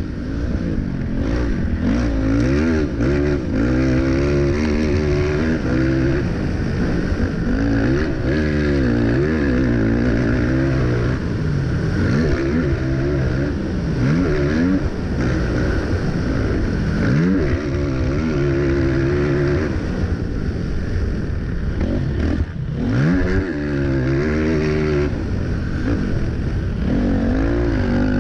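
Racing quad's engine at full race pace, revving up and down through the gears over and over, the pitch falling sharply when the throttle is shut, as twice past halfway, then climbing again.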